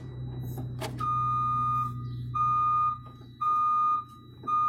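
Truck backup alarm beeping, a single high tone repeating about once a second from about a second in: the sign that the transmission has gone into reverse through the newly adjusted shift cable. A click comes just before the beeping, and a low steady hum underneath fades out about three seconds in.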